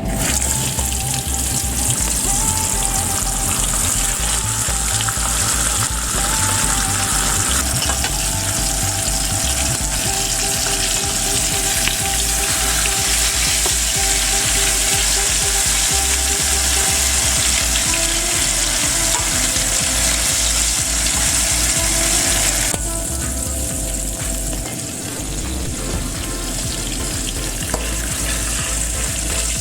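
Fish frying in hot oil: a steady, loud sizzle that turns down in level about three-quarters of the way through.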